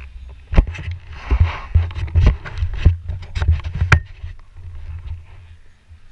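Knocks and thumps picked up by a helmet-mounted camera as the rider moves about in motocross gear, coming about every half second over a low rumble of handling noise. They stop about four seconds in.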